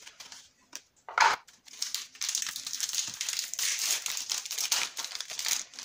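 Foil wrapper of a Magic: The Gathering booster pack crinkling and crackling in the hands as it is handled, from about two seconds in almost to the end. About a second in there is a brief voice-like sound, the loudest moment.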